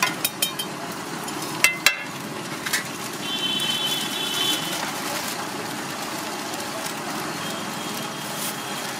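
Egg omelette sizzling on a flat iron griddle, a steady hiss under street noise. A few sharp clicks come in the first two seconds, and a brief high tone sounds about four seconds in.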